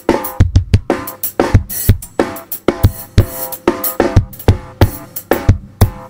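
Acoustic drum kit played with sticks: fast strokes on snare, toms and bass drum, with cymbals ringing over them, several hits a second.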